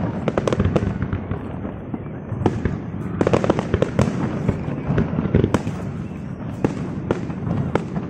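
Aerial fireworks bursting in quick, irregular succession: many sharp bangs and crackles over a continuous low rumble.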